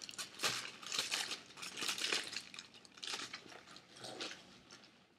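Eating sounds: irregular crinkling and crunching while a McDonald's chicken mayo burger is eaten, with its paper wrapper handled.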